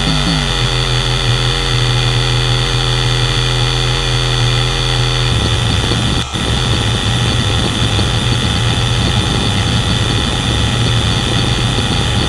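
Hitachi DK228A-65 2.5-inch hard drive's heads seeking under a SpeedSys seek test, over the steady hum of the spindle. A buzzing tone falls in pitch and then holds steady. About five seconds in it gives way to an irregular chatter of random seeks.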